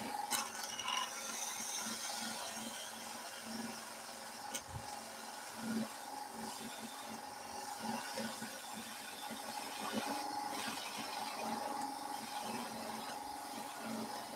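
Skew chisel planing the surface of a spindle turning on a wood lathe: a steady hiss of the cut over the lathe's running hum, with a couple of sharp clicks.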